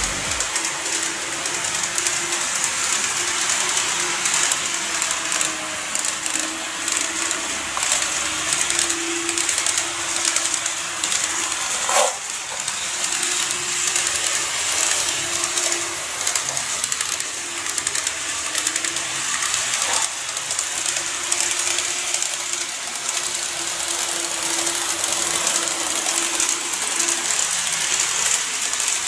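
KATO N-gauge model electric train running on the layout's track: a steady whirring of the small motor and wheels on the rails, with a faint hum that comes and goes and one sharper click about twelve seconds in.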